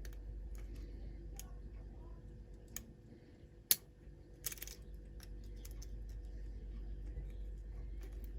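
Lock pick and tension wrench working a pin-tumbler lock fitted with security pins: scattered small metallic clicks and scrapes as pins are set, with one sharper click about three and a half seconds in and a brief scraping rasp a second later, over a low steady hum.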